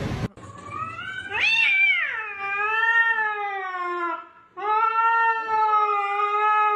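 Domestic cat yowling in two long, drawn-out meows. The first rises sharply in pitch and then falls away; the second is held nearly level.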